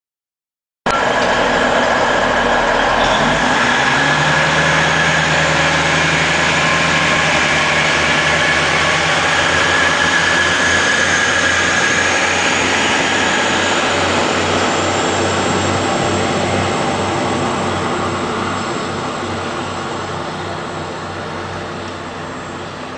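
Two coupled SNCB class 41 (AR41) diesel railcars pulling away and passing close, diesel engines running under power over the rumble of wheels on track. The sound cuts in abruptly about a second in, holds loud and steady, then fades over the last several seconds as the train moves off.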